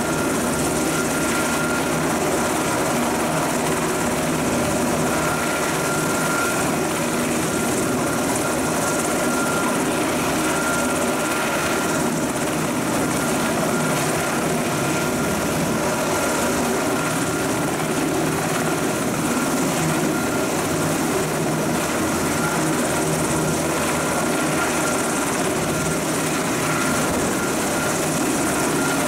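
US Coast Guard MH-60T Jayhawk helicopter running on the ground with its rotors turning: steady twin-turbine and rotor noise with a constant high whine over it.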